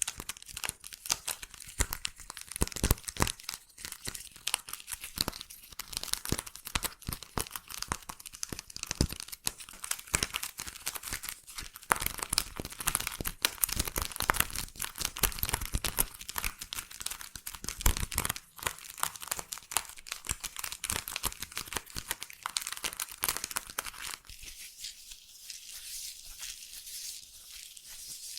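Slime being squished and worked close up for ASMR mock ear cleaning: a dense, sticky crackling full of small pops and clicks. Near the end the crackle turns thinner and lighter, its lower thuds dropping out.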